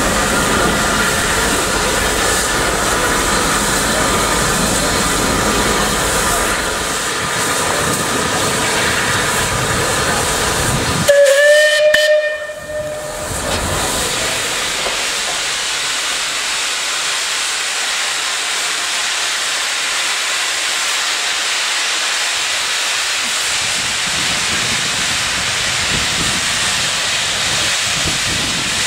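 Steady hiss of escaping steam from a Merchant Navy class steam locomotive, with a short whistle about eleven seconds in.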